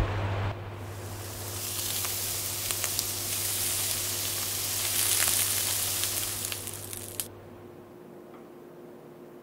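Steak searing in a hot frying pan: a dense sizzle with scattered crackling pops that swells about five seconds in and cuts off abruptly a little after seven seconds. A deep rumble fades out in the first half second.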